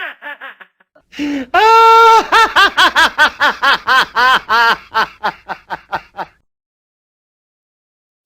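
Exaggerated clown laugh in a high voice: the end of one laugh, then a long drawn-out 'haaa' about a second and a half in, running into a rapid string of 'ha-ha-ha' pulses that die away about six seconds in.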